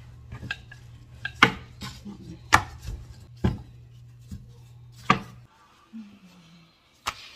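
Wooden rolling pin rolling out tortilla dough on a wooden cutting board, knocking sharply against the board about once a second over a steady low hum. The hum cuts off about five and a half seconds in, and one more sharp knock comes near the end.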